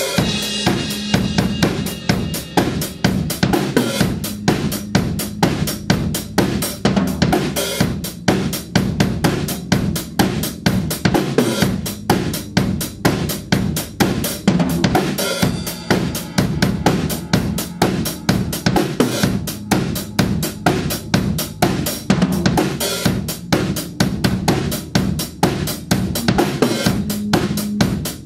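Live rock band playing an instrumental song: a drum kit keeping a steady beat with snare, bass drum and cymbals, over bass guitar, electric guitar and keyboard.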